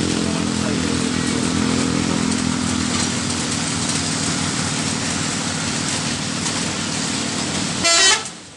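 Road traffic: heavy truck engines and motorcycles running steadily, with one short, loud horn toot near the end.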